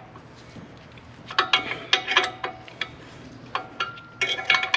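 Steel wrenches clicking and clinking on a bolt and nut as a bushing press tool is tightened, drawing a new hub bar bushing into its bore. The clicks come in two short spells, from about a second in and again near the end, each with a brief metallic ring.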